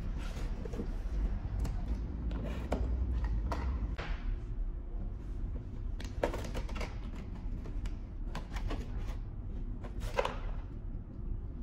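Handling noise of kit parts being unpacked from a soft case and a plastic toolbox and set on a table: scattered clicks, light knocks and plastic packaging rustling, over a steady low hum.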